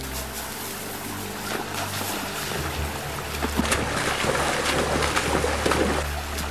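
Feet splashing and churning water as several people wade through a shallow stream, the splashing getting louder in the second half and easing off near the end. A low, steady music bass plays underneath.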